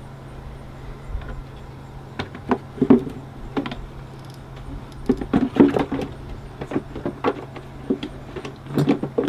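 Scattered clicks, knocks and light rattles of metal and plastic parts being handled and set back in place in a car's engine bay, in several short clusters, over a steady low hum.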